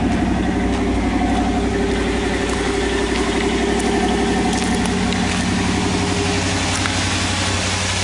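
Car engine idling steadily just after a cold start at about minus 40 degrees, having sat for three days in a blizzard.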